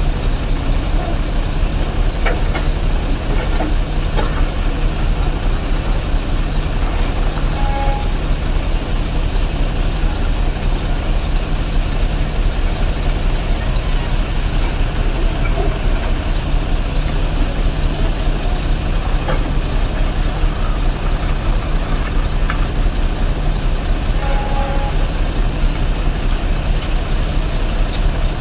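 Kobelco SK140 excavator's diesel engine running steadily as the arm and bucket dig, with a few faint clicks of rock.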